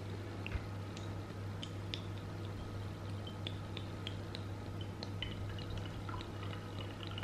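Thick sweet chili sauce pouring from a bottle into a glass bowl: faint scattered wet drips and ticks over a steady low hum.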